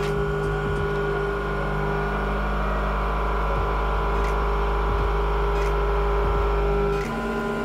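CNC milling machine's spindle driving an end mill along the side of an aluminum bar: a steady machining whine of several tones over a low hum, with a few light ticks of flying chips. About seven seconds in the tones shift and it gets slightly quieter.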